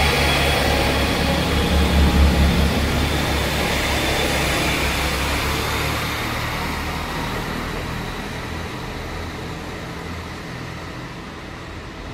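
Passenger multiple-unit train moving away past the platform, a low rumble with wheel noise that peaks about two seconds in and then fades steadily.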